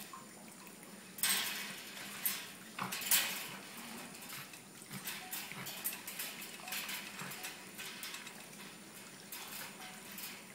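Light metallic clinks and rattles from a wire pet cage as a dog shifts about on its wire floor beside a rabbit, with the sharpest clinks a little over a second in and around two and three seconds, then softer rustling.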